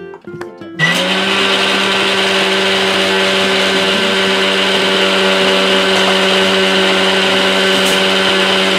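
Electric kitchen mixer grinder switching on about a second in and then running steadily at full speed, grinding ingredients in its jar.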